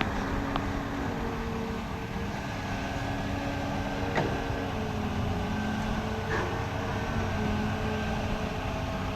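Excavator's diesel engine running under varying load, its steady tones shifting in pitch as the hydraulics work, with three short knocks along the way.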